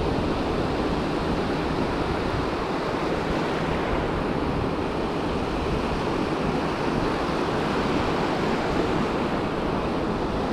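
Ocean surf breaking and washing up a sandy beach, a steady rushing wash with wind buffeting the microphone.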